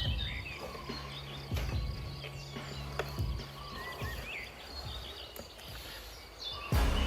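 Birds chirping in short, sweeping calls over a steady insect-like trill, with a few low thumps about a second apart and a louder swell near the end.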